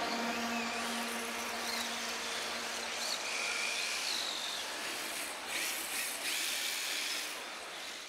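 Background music fading out over the first few seconds, leaving a steady hiss of hall noise with several thin, high-pitched whines that wobble in pitch, from the electric motors of RC drift cars. It all fades away at the end.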